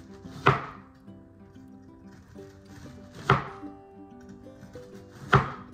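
Chef's knife chopping through a red onion and hitting the cutting board, three sharp chops a few seconds apart. Background music plays underneath.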